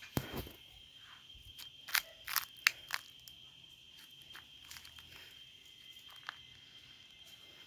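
Footsteps crunching on dry leaves and dirt, a cluster of crisp crunches in the first three seconds and a few fainter ones later, over a steady high-pitched insect trill.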